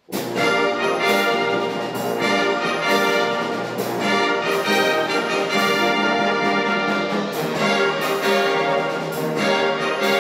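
Concert wind band starting a piece: after silence the full band comes in together on the first beat and plays on loudly, with the brass section leading, and sharp accented hits every couple of seconds.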